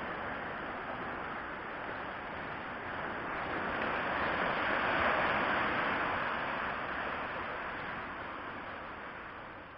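Even rushing noise of wind and gentle surf, picked up by the SJCam SJ4000 Air action camera's built-in microphone, swelling about halfway through and then easing off.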